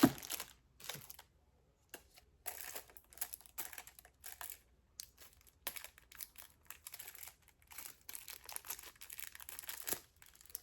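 Irregular crinkling and rustling of plastic packaging as hand tools are handled and unwrapped, with a sharp click at the very start.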